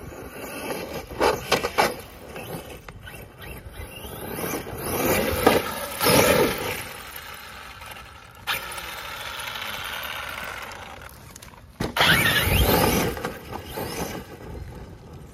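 Traxxas Sledge RC monster truck's brushless electric motor whining under hard throttle, rising and falling in pitch, as its tires spin and scrabble through soft plowed dirt. The loudest blasts come about a second in, around five to six seconds in, and near twelve to thirteen seconds in.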